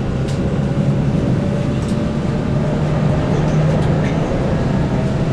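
Keihan 8000 series train running at speed, heard from inside the car: a steady rumble of wheels and running gear, with a faint tone from the DC traction motors slowly rising in pitch.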